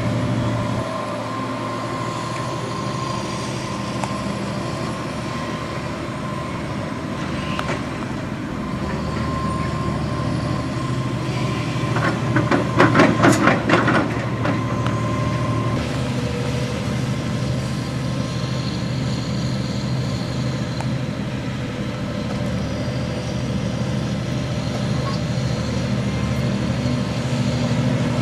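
Heavy hydraulic excavator's diesel engine running steadily at a demolition site, with a burst of rapid clattering about halfway through as the loudest moment.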